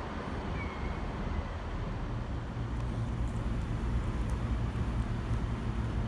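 Diesel train at the platform: a steady low engine rumble with a haze of noise above it, a brief high squeal about half a second in, and faint light clicks in the second half.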